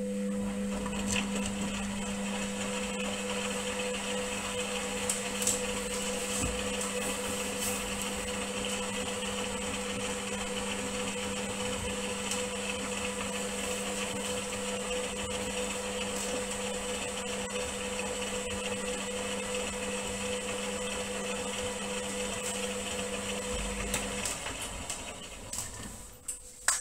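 Indesit front-loading washing machine tumbling a load of wet towels during its wash: the drum motor runs steadily with the swish of water and suds, then stops about 24 seconds in.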